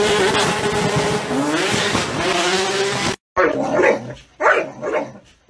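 A loud, noisy stretch with a steady pitched tone in it cuts off suddenly about three seconds in. A dog then gives several short barks, each bending in pitch.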